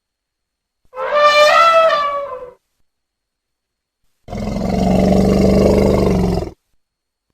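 Elephant calls: a brassy trumpet of about a second and a half that drops in pitch at its end, then, after a short gap, a longer, lower, rougher roar.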